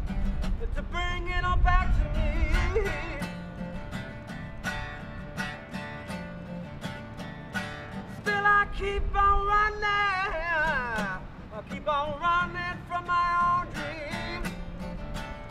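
A man singing and strumming an acoustic guitar. Sung phrases come and go over steady strumming, with a long wavering held note about ten seconds in.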